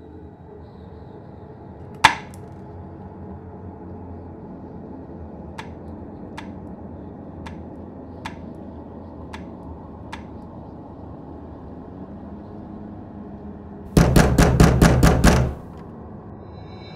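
Cleaver chopping raw pork on a wooden cutting board: one sharp chop about two seconds in, then lighter knocks about once a second, then a fast run of about eight loud chops near the end. A low steady hum runs underneath.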